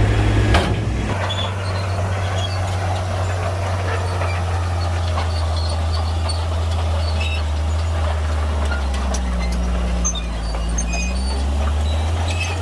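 Shantui bulldozer's diesel engine running with a steady low drone, its note dipping and coming back up about nine to eleven seconds in. A few knocks near the start.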